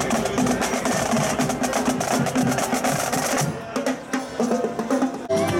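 A carnival drum band playing marching drums, snare drums among them, in a fast, busy rhythm. The drumming thins to scattered hits about three and a half seconds in, and other music with held notes comes in just at the end.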